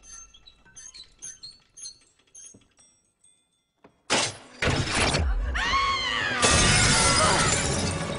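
Small high metallic squeaks and clinks from a crystal chandelier being unscrewed, a few a second. After a second's pause, about four seconds in, a sudden heavy crash as the chandelier comes down, with glass shattering and a long spill of crashing debris.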